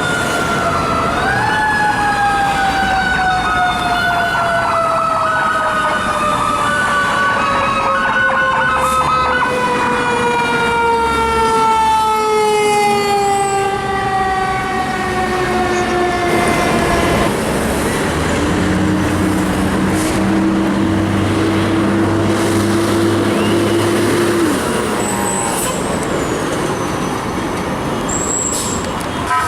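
Fire engine siren winding down in a long, slowly falling wail after a brief rise about a second in. A lower steady tone follows for several seconds, then drops away, over the rumble of the trucks.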